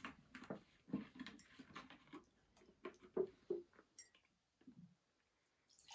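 Faint scattered clicks and crackles of a large plastic water jug being handled as its cap is unscrewed.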